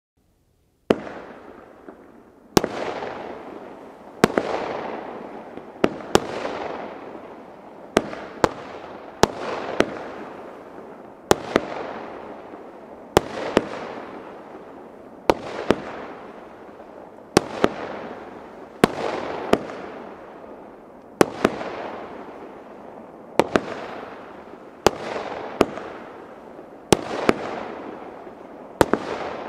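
A crossette fireworks battery (consumer F2 cake) firing shot after shot, starting about a second in. A sharp report comes every one to two seconds, some in quick pairs, and each is followed by a fading hiss as the crossette comets split and burn.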